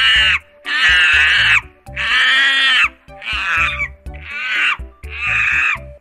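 A series of high-pitched animal calls, about one a second, each lasting up to a second, over background music.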